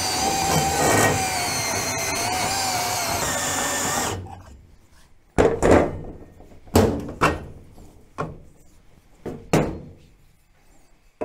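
Handheld portable band saw cutting through 1-inch square steel tubing: a steady cutting noise with a wavering tone for about four seconds, which stops abruptly. Then several sharp metal clanks and knocks as the steel tubing is handled and laid on the steel tool chest.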